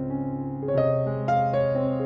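Background piano music: a slow melody with a new note struck every half second or so over held low notes.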